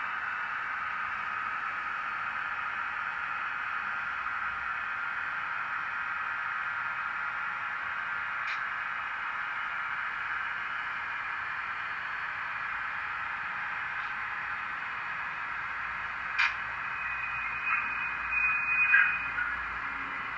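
HO-scale model train of grain hoppers running steadily along the track, a continuous even hiss. A sharp click comes about sixteen seconds in, and a few brief louder sounds with a short high tone follow near the end.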